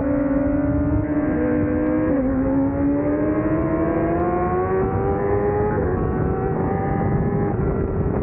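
Honda CBR1000RR-R's inline-four engine under power, its pitch climbing steadily as the bike drives out of a turn, then dropping a little about six seconds in and holding steady. Steady wind rush runs underneath.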